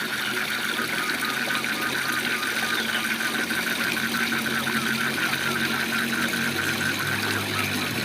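Waterfall rushing steadily, with a frog calling in a rapid, even series of short notes that stops shortly before the end, over a low steady drone.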